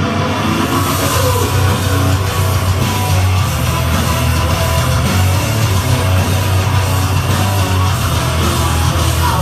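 Loud heavy rock music with electric guitar and a strong, steady bass, playing continuously.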